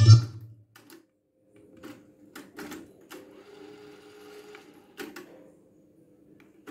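Sony TC-W435 cassette deck: music from the tape stops just after the start, then the deck's transport buttons click several times while its tape mechanism runs with a faint hum between the clicks.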